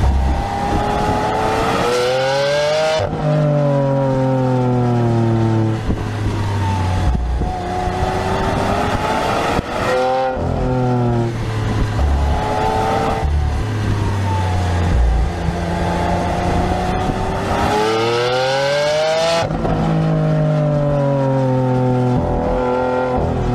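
Lamborghini Aventador's V12 engine, heard from inside the cabin, revving up under acceleration again and again with an abrupt drop in pitch at each gear change. Between pulls the pitch falls away as the car slows.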